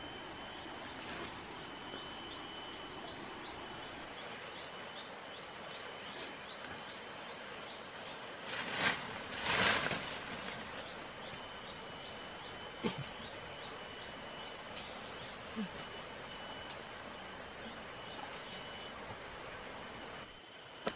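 Steady outdoor ambience of river water running, with insects chirping in a fast regular series of short high notes. A louder noisy burst lasting about a second and a half comes around nine seconds in, and two faint clicks follow later.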